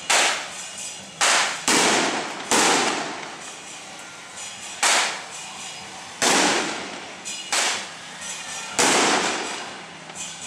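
Firecrackers going off in a series of about eight loud, sharp bangs at irregular intervals, with smaller pops between them; each bang fades out over about half a second.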